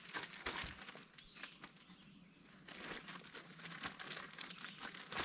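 A plastic zip-top bag holding paper instructions being handled: irregular crinkling and rustling crackles, easing off briefly about two seconds in.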